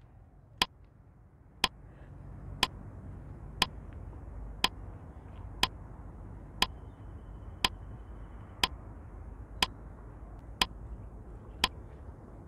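Countdown timer sound effect ticking once a second with sharp, evenly spaced clicks, over a faint low background rumble.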